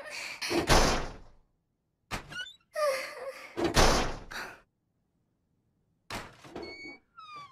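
A locker door banging and thudding in several separate hits as it is pounded on and pulled open.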